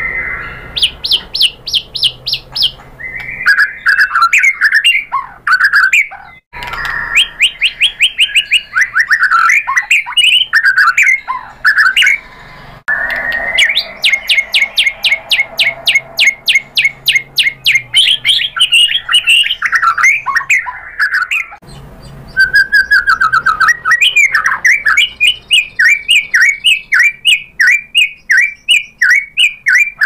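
White-rumped shama (murai batu) singing a long, varied song of fast runs of repeated short high notes and sliding whistled phrases, broken by a few brief pauses.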